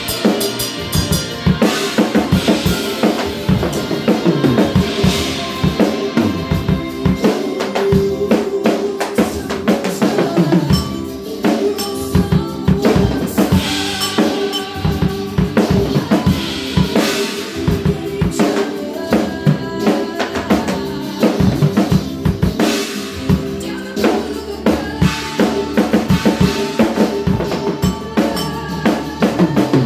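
Large acoustic rock drum kit played steadily, with kick drum, snare and cymbals, along with a recorded rock song.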